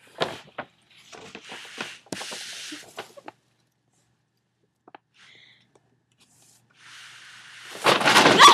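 A shopping bag rustling and crinkling as a cat paws at it and plays in it: short scattered crackles and rustles, a quiet spell, then a longer, louder rustling burst near the end.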